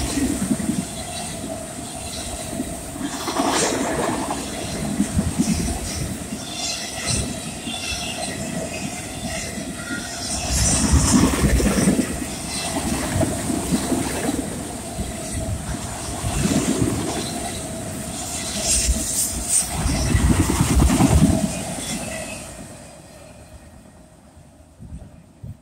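Autorack freight cars rolling past close by: the wheels clatter over the rail joints in recurring heavy rumbles, with a steady whine over them. About 22 seconds in the noise falls away as the end of the train draws off.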